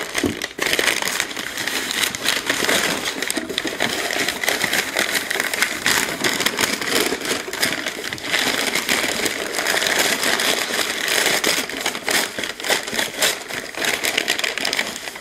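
White packing paper rustling and crinkling continuously as hands unwrap a glass item, with many small crackles throughout.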